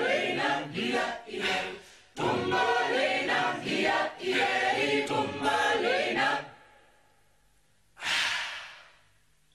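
Voices singing a chant-like closing song in short phrases, with a brief break about two seconds in, ending about six and a half seconds in. About eight seconds in, a single short burst of hiss sounds and fades away over about a second.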